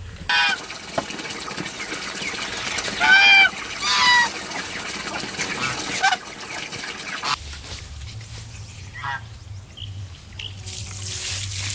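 Geese honking: a few loud calls in the first half and a fainter one later. Near the end, water starts to splash out of a tipped plastic bucket onto the ground.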